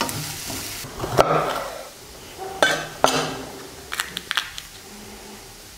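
Oil sizzling in the frying pan for about the first second, then a few separate knocks and clatters of a kitchen knife on a wooden cutting board as a bell pepper is cut and handled.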